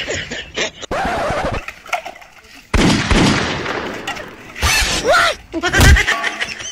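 Men's voices from a skit's soundtrack, broken by two loud, sudden bursts of noise, the second lasting about a second, and a low thump near the end.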